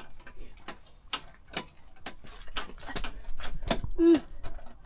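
Trabant 601's air-cooled two-stroke twin being cranked by the starter, turning over in an even rhythm of about two strokes a second without catching, now turning the right way round after a Wartburg starter had spun it backwards.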